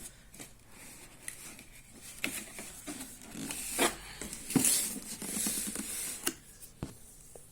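Packaging being handled and opened: rustling, with scattered light clicks and knocks.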